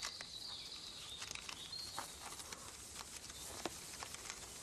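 Siberian chipmunk gnawing at a Siberian pine cone to get at the pine nuts: scattered small clicks and crackles.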